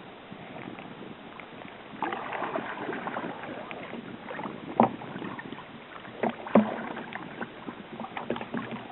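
Kayak on the sea with water splashing around the hull, with two sharp knocks near the middle.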